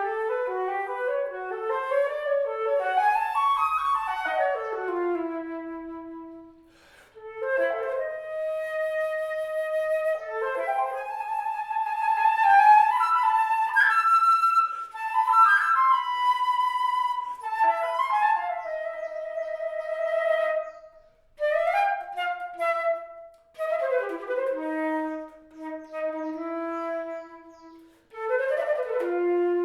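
Solo flute playing a lively melody with quick runs up and down and some held notes. There is a short pause about seven seconds in and a few brief breaks later on.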